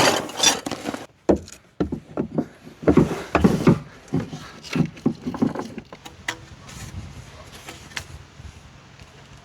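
Hands working plastic drain pipe fittings, with a busy run of knocks, clicks and scrapes that thins out to a few faint ticks after about six seconds.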